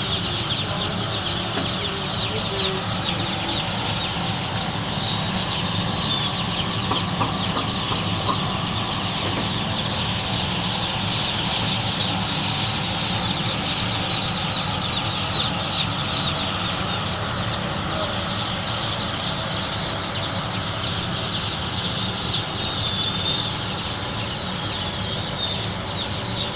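A large flock of broiler chicks peeping all at once, a dense, unbroken chorus of high chirps, over a steady low hum.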